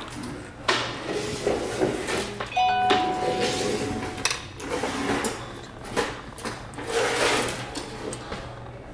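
Restaurant dining-room ambience: a steady low hum under scattered light clicks and clatter of tableware. About two and a half seconds in, a chime-like tone sounds and holds for about a second and a half.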